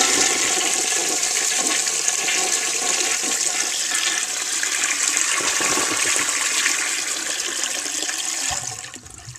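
1931 Standard Ejecto toilet flushing a load of toilet paper, which it takes down fully. The loud, steady rush of water lasts about nine seconds and then drops off near the end to a quieter trickle.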